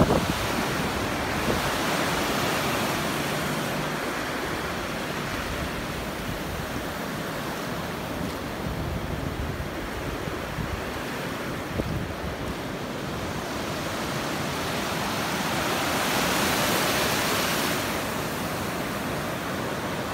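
Surf breaking on a sandy beach: a steady wash of waves that swells louder twice, once near the start and once near the end, with a low rumble of wind on the microphone.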